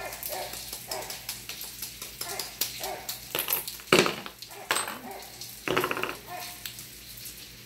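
Ice pick chipping a chunk of clear ice: a run of short sharp clicks and cracks, with a couple of louder sudden sounds about four seconds in and a short burst just before six seconds.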